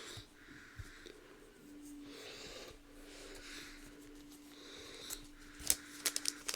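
Soft breathing close to the microphone while trading cards are handled, over a faint steady hum; near the end come a quick run of sharp clicks and snaps from the cards.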